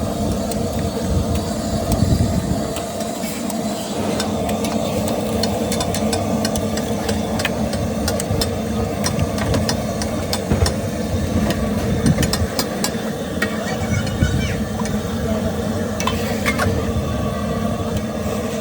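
Street-food frying on a hot griddle: a steady sizzle with frequent sharp clicks and scrapes of a metal utensil, over a constant low hum.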